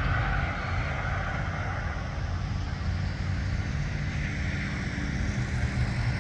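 Steady low rumble of vehicle noise, a little louder in the first second, then even.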